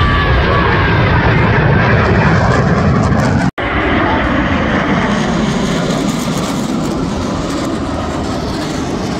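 Jet engine noise from Blue Angels F/A-18 Super Hornets flying a formation pass: a loud, steady rush that breaks off for a moment about three and a half seconds in.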